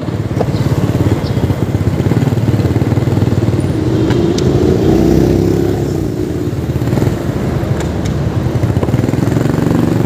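Motorcycle engine running as it is ridden, a steady low rumble whose pitch rises a little about halfway through, then eases back.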